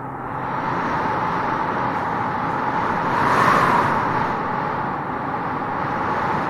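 Wind blowing through grass in a steady rush, swelling into a stronger gust about halfway through and then easing.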